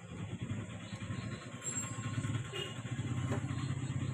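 KTM Duke 200 single-cylinder engine idling with a fast, even ticking rattle from the timing chain. The owner traces the noise to a faulty timing chain adjuster that lets the chain go slack.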